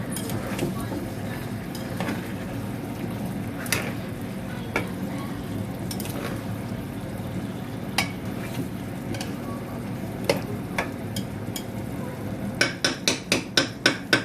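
Chicken and chayote being stirred in a cooking pot over a steady sizzle, the stirring utensil clinking against the pot now and then; near the end a quick run of about eight clinks.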